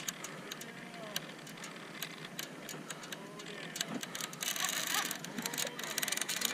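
Conventional fishing reel and rod handled during the fight with a hooked sturgeon: scattered clicks and rubs, with a louder rushing hiss from about four and a half seconds in.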